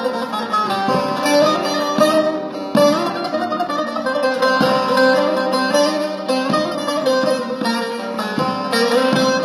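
Music: the instrumental introduction of a Turkish song, a plucked-string melody over a full accompaniment, with no singing yet.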